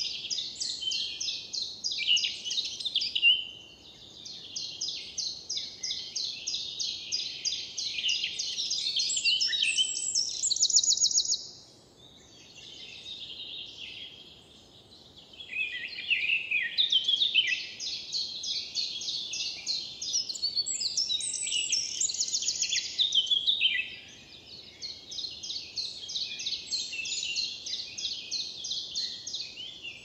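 Songbirds singing fast, high-pitched songs made of many quick repeated notes and trills, in long phrases of several seconds, with a short lull about a third of the way through.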